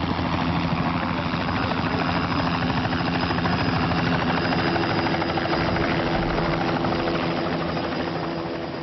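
US Coast Guard Sikorsky MH-60T Jayhawk helicopter coming in to land close by: a fast, steady rotor chop with steady engine tones underneath, easing slightly near the end.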